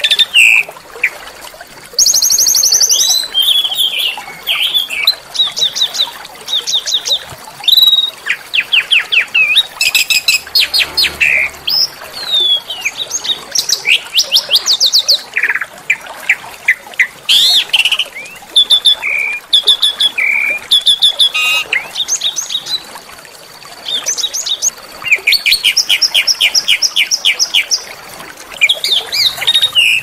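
Small songbirds singing a harsh, dense song of fast rattling trills, chips and downslurred notes. A thin, steady high whistle is held underneath for several seconds, twice.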